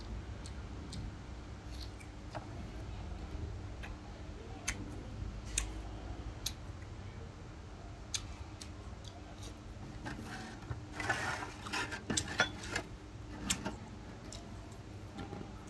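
Eating and tableware sounds: scattered sharp clicks and clinks of a spoon and ice against dishes, with a denser stretch of crackling clicks about eleven seconds in, over a steady low hum.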